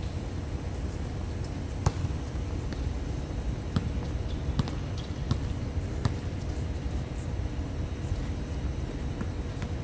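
A basketball bouncing on an outdoor court: a handful of scattered sharp bounces, irregularly spaced, over a steady low rumble.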